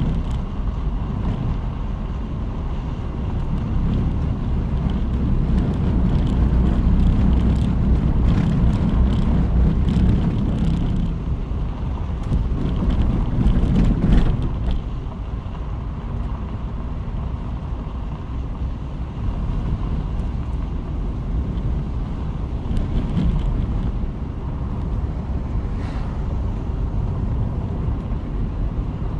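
Car driving along a road: steady rumble of tyres and engine with wind buffeting the microphone. It grows louder for a stretch and eases off about halfway through, with a few faint ticks in the middle.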